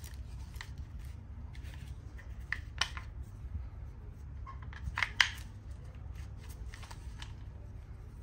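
Hard plastic knife sheaths and their fittings being handled in gloved hands: scattered clicks, taps and short scrapes, the sharpest about three and five seconds in, over a low steady hum.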